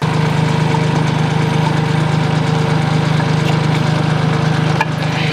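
Compact tractor engine idling steadily while the PTO shaft is being test-fitted. A single sharp click sounds near the end.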